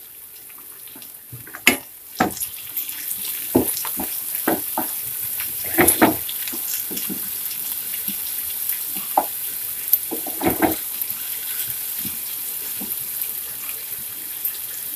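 Onions, soaked urad and chana dal, dried red chillies and curry leaves sizzling steadily in hot oil in a frying pan, the sizzle getting louder about two seconds in. A spatula scrapes and knocks against the pan at irregular moments as the mixture is stirred, with the loudest knocks about two and six seconds in.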